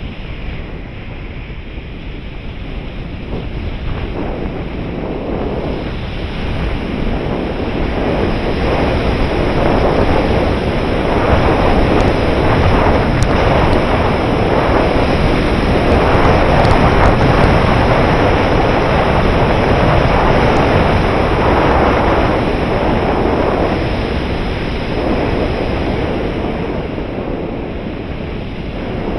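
Rushing wind noise from air streaming over a camera mounted on the wing of a flying radio-controlled glider. It swells to its loudest through the middle, then eases off.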